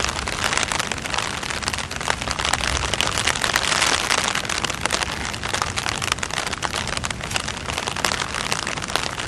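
Steady rain falling: a dense, even hiss dotted with many small clicks.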